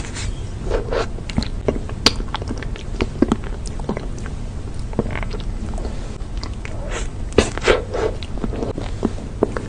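Close-miked mouth sounds of eating soft chocolate ice cream: irregular wet smacks and clicks of biting and licking. A few louder smacks come about two seconds in and near the end, over a steady low hum.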